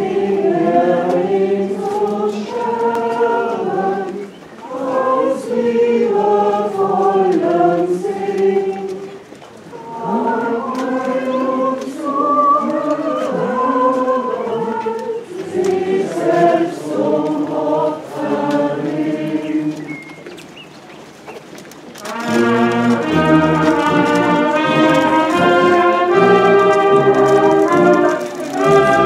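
Crowd of walking people singing a hymn together in phrases, with short breaks between lines. About 22 seconds in, a brass band starts playing and carries on.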